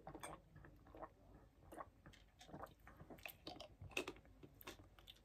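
Near silence, with faint, scattered small clicks and mouth sounds as a drink is gulped from a plastic sports-drink bottle and the bottle is then handled. The clicks are a little stronger about four seconds in.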